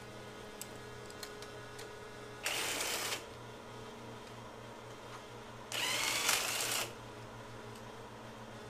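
A power tool spinning out the cylinder head bolts of a Briggs & Stratton Intech engine in two short bursts, the second longer, with the motor's pitch shifting as it runs.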